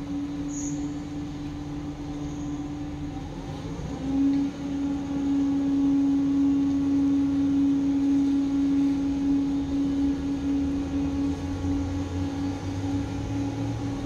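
Heavy diesel construction machinery running, the excavator and the concrete mixer truck at work: a steady engine hum that shifts pitch briefly about three to four seconds in, then grows louder.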